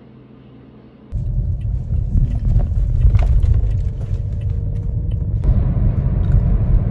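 Low rumble of a car's cabin while driving, starting suddenly about a second in and holding steady, with a few faint clicks over it.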